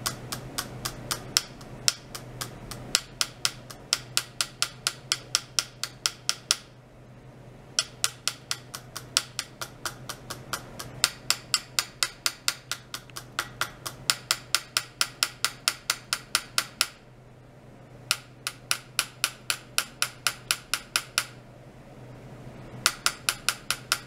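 Rapid, regular metallic clicking, about four clicks a second, from ultrasonic probes driven in pulse oscillation by a function generator on a stainless steel tray and rods. The clicking breaks off three times for a second or so and starts again, over a steady low hum.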